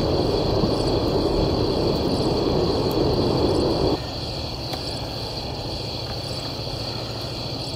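Crickets trilling steadily in a high pitch over a low rushing noise that cuts off abruptly about four seconds in, leaving the insect chorus and a few faint ticks.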